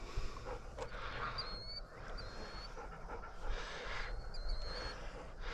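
Hunting dog panting, with faint short high-pitched squeaks now and then.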